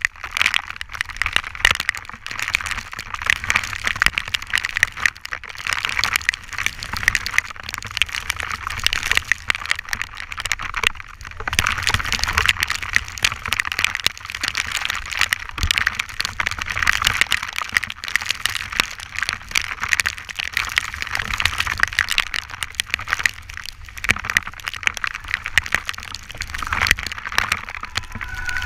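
Heavy rain striking a GoPro camera housing as a dense, steady crackle of drops, over a low rumble of wind and wheels rolling fast on wet asphalt.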